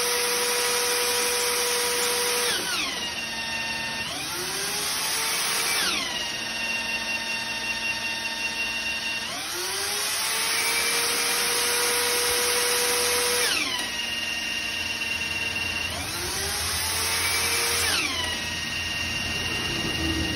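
Small bench motor spinning a Jeep Grand Cherokee WJ alternator with a steady whine whose pitch drops and rises again several times as the jumper wire is touched on and off the alternator's field pin. The alternator's generating load comes and goes on the motor.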